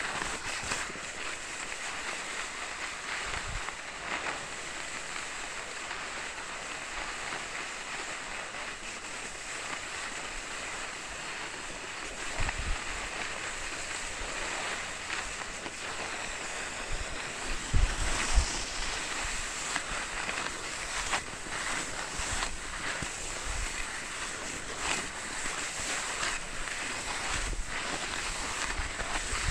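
Steady hiss of skis sliding over packed snow, mixed with wind rushing on the microphone, with a few low thumps near the middle.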